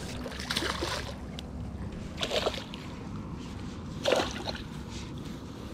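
Small jack pike splashing at the surface as it is brought to the bank on a lure, in three short bursts, over a low steady rumble.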